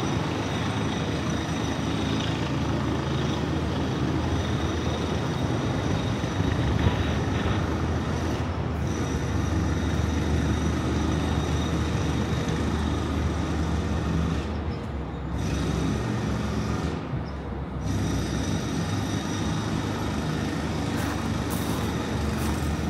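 Steady city background noise: traffic running with a low mechanical hum underneath.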